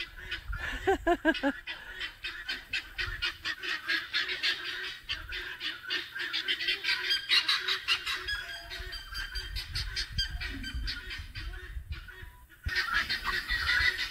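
A flock of chickens clucking and calling, with a couple of louder squawks about a second in, over a steady fast ticking in the background.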